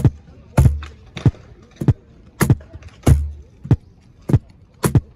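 Cajon played by hand in a steady, repeating groove. Deep bass strokes alternate with sharp, crisp slaps at the edge of the front plate, about one stroke every two-thirds of a second.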